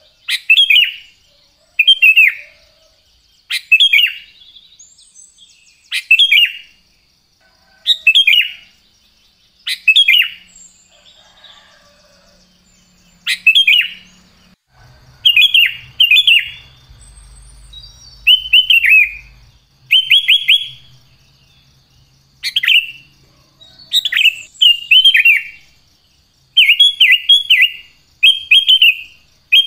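Sooty-headed bulbul (kutilang) singing: short, loud whistled phrases of falling notes, repeated about every two seconds, which give way in the second half to quicker runs of several notes each.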